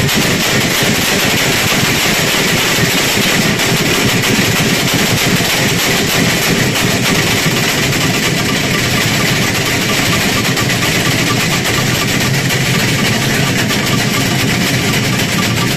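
Dozens of large cowbells worn at the waist and swung together by rows of bell-ringers: a continuous, dense clanging din without a break.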